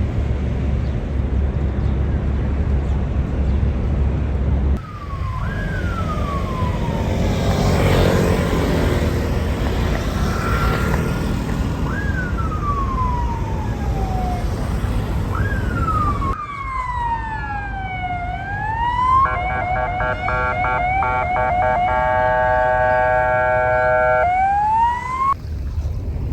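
Emergency vehicle siren over street traffic noise. It gives slow falling wails about every three and a half seconds, then faster sweeps, then a rapid choppy pattern of steady tones, and ends on a rising sweep.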